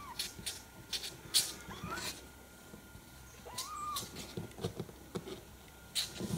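Young kittens, about four weeks old, giving three short high mews, one of them rising in pitch. Light ticks and scratches come from their claws on cardboard as they climb over the box wall.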